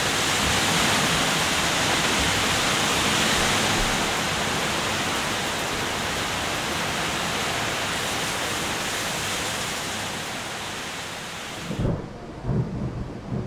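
Hurricane rain pouring down hard with wind, a dense steady rush that is loudest in the first few seconds and slowly eases. It cuts off abruptly near the end, leaving a few low thuds.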